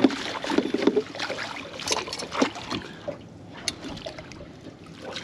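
Water splashing and trickling, with scattered sharp knocks and clicks, as a hooked striped bass is played beside the boat toward the landing net.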